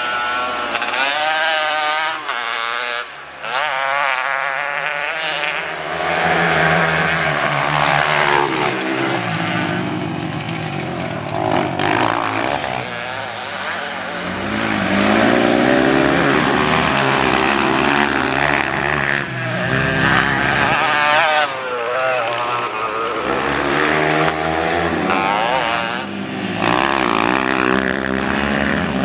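Single-cylinder trail bike engine revving up and down over and over as it is ridden hard, its pitch rising and falling with each throttle blip and gear change.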